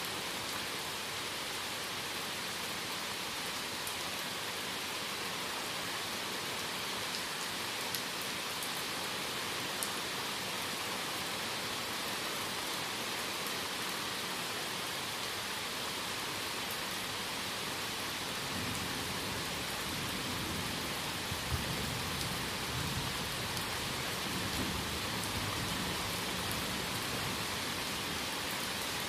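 Heavy thunderstorm rain falling steadily, with a few sharp close drop hits. About two-thirds of the way through, a low rumble of thunder comes in and rolls on.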